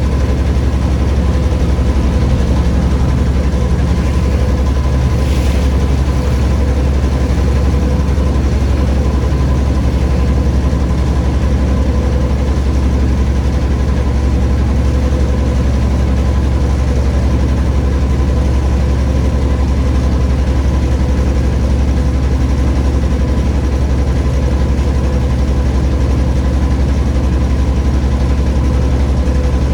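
Steady low engine drone, like a motor idling, holding an even pitch and level throughout, with a brief faint rushing sound about five seconds in.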